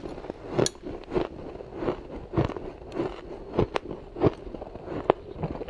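Mouthfuls of crushed ice and powdery frost ice being bitten and chewed: a steady run of crisp crunches, roughly one every half second.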